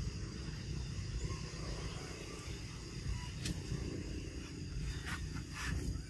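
Steady outdoor rumble with a thin steady high tone, and a few short crackles in the second half, dry leaves rustling as a baby macaque moves over the forest floor.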